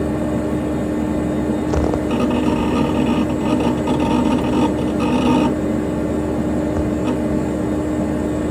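Dell Dimension XPS P100c desktop computer's cooling fan running with a steady hum. From about two seconds in until about five and a half seconds, the hard drive joins with a click and a stretch of whirring, chattering drive activity, then drops back to the fan alone.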